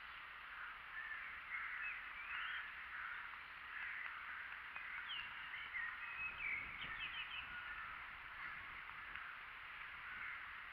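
Several small songbirds chirping and singing, a mix of short chirps, quick whistled slides and a fast run of trills, busiest about midway.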